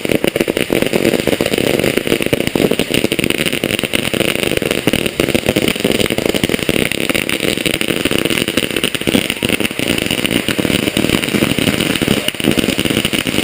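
Dense, unbroken crackling and popping of many small firecrackers, loud and steady throughout.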